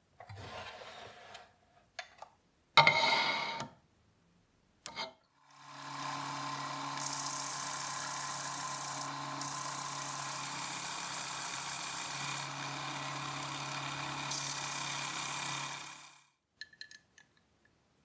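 Bench belt sander running with a steady motor hum while a small wood-and-epoxy block is pressed against the belt, its hiss easing briefly as the block is lifted and pressed again, for about ten seconds before the sander stops. Before it starts, a few short handling knocks and one loud clack.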